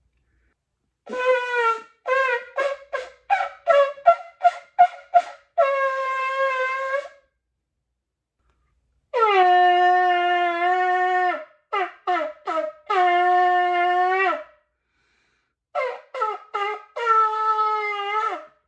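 A shofar (ram's-horn trumpet) blown by an inexperienced player in three groups of blasts. Each group has a run of short staccato notes and one or two longer held notes. The pitch sometimes jumps or wavers as she struggles to get the sound she is aiming for.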